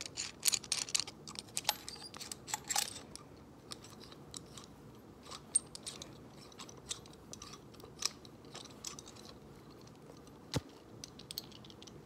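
Small metal screwdriver pieces of a hammer multi-tool clicking and rattling as they are handled and fitted together. The clicks come quickly for the first three seconds or so, then only now and then.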